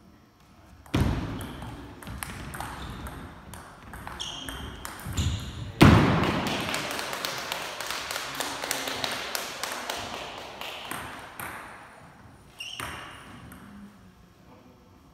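Table tennis ball clicking off paddles and the table in a rally. About six seconds in comes a louder, noisier stretch that fades slowly.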